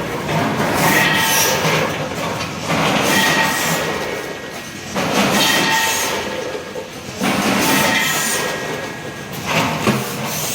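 Rotary premade-pouch packaging machine running, a loud mechanical noise that swells in a repeating cycle about every two seconds, with a faint steady whine in each cycle.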